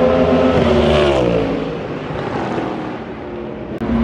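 Race car at high revs passing on the main straight, its engine note dropping in pitch as it goes by and then fading away. Near the end a sudden break brings in another loud engine note.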